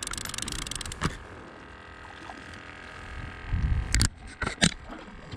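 Close handling noise: rustling and rubbing near the microphone, then a low bump and two sharp knocks about four seconds in.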